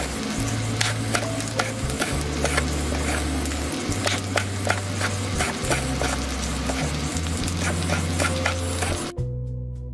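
Large knife chopping green chillies on a wooden chopping board: a quick, uneven series of sharp knocks, over background music with a low bass line. A little before the end the chopping cuts off abruptly and only the music is left.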